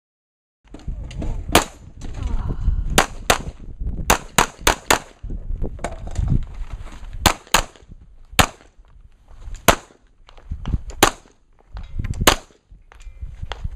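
Pistol shots fired in competition: over a dozen sharp cracks, some as quick pairs and one fast string of four, with pauses between groups as the shooter moves to new positions.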